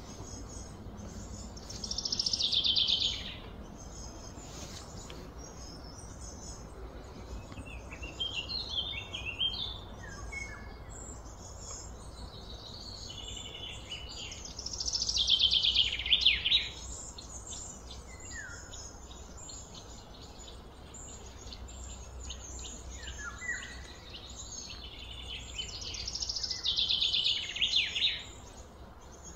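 Birdsong: a quick run of high, rapid notes that comes three times, with short scattered chirps between, over a steady low hum.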